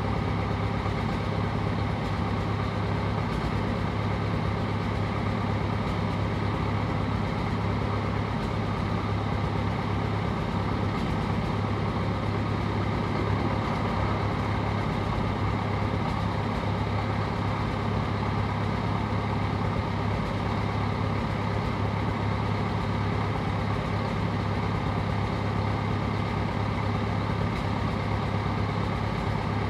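Caterpillar 955 track loader's diesel engine idling steadily at an even pitch.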